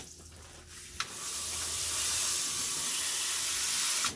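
Hose watering wand spraying water, a steady hiss that starts about a second in and cuts off abruptly near the end.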